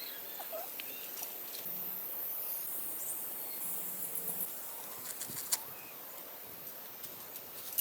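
Outdoor farm ambience: a steady high insect drone with scattered light clicks and rustles.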